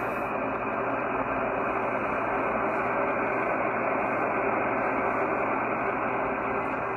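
Kenwood TS-930S HF transceiver's speaker giving a steady hiss of band noise and static, tuned on the 20-metre band with no station coming through. The hiss is dull, with no treble above the receiver's narrow audio passband.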